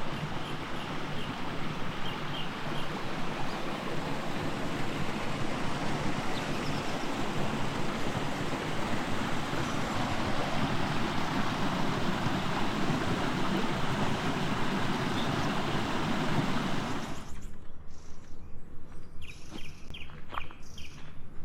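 Steady rushing noise that cuts off abruptly about three-quarters of the way through, leaving a quieter outdoor background with small birds chirping.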